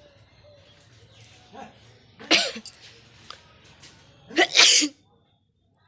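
A person sneezing twice, about two seconds apart, the second sneeze longer, with a smaller breath or sniff before the first.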